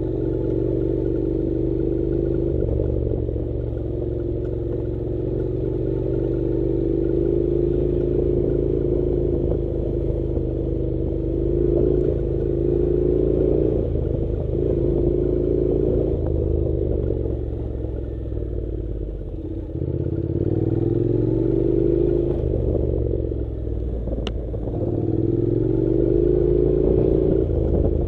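Honda NC700 motorcycle's parallel-twin engine running at low speed on a dirt track, its pitch rising and falling several times as the throttle is opened and eased off. There is one short click near the end.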